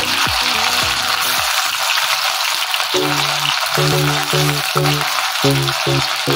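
Diced potatoes frying in hot oil in a wok: a steady sizzle. Background music plays underneath.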